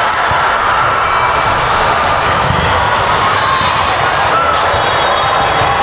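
Volleyball gym ambience: a steady hubbub of voices with volleyballs bouncing on the hardwood court, and a short squeak late on.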